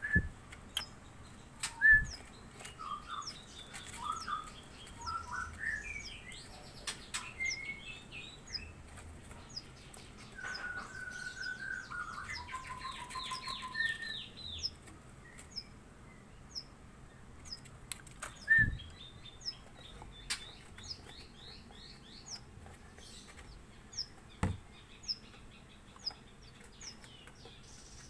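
Young Javan bushlarks chirping: short high falling chirps repeat about twice a second, with two runs of warbling notes. A few sharp knocks are the loudest sounds.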